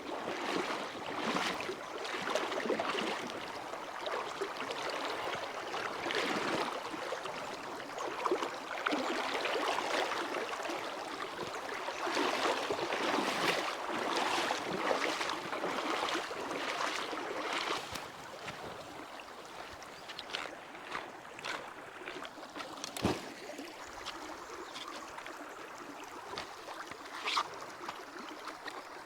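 River water rushing and sloshing over rocks, an uneven splashing that is louder for the first eighteen seconds or so and then drops to a softer flow. A few sharp knocks or clicks come through the water noise, the strongest about two-thirds of the way in.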